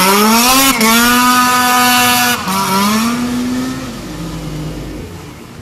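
Snowmobile engine revving hard at full throttle as the sled launches off the bank and skims across open river water. The pitch climbs, holds high, dips briefly about two and a half seconds in, climbs again, then fades as the sled moves away near the end.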